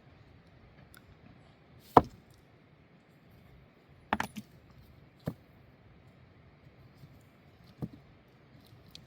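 A few sharp knocks of hard objects striking: one loud knock about two seconds in, a quick run of three about two seconds later, then two more, spaced apart.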